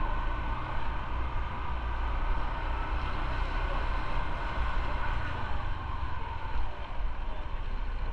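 Motorcycle riding at low speed, heard from the rider's camera: a steady low engine rumble with a constant hum higher up.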